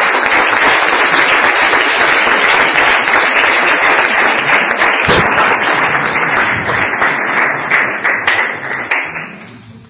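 Audience applauding: a loud, dense run of many hands clapping that fades away near the end.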